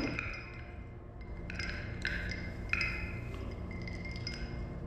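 Ice cubes clinking against a glass, a string of light ringing clinks about half a second apart, over a faint low steady hum.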